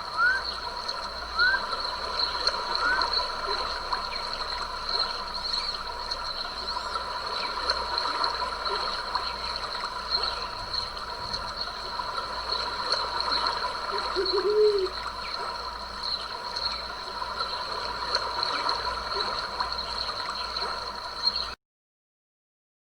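Stream water flowing and trickling steadily, with a few short rising animal chirps in the first seconds and one lower call about two-thirds of the way through. The sound cuts out abruptly to silence near the end.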